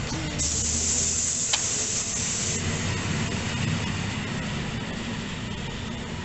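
Train at a station: a burst of high hiss lasting about two seconds over a steady low rumble, with one sharp click partway through; the rumble then slowly fades.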